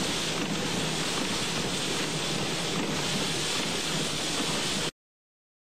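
Very high storm winds and driving rain hitting a moving vehicle: a steady, dense rush of wind and rain noise. Near the end the sound cuts off to complete silence for about a second.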